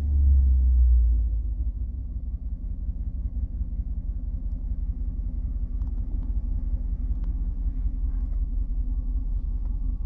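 Jeep Grand Cherokee's 4.7-litre V8 idling with a steady low rumble. Its revs fall back from a blip during the first second, then hold at an even idle.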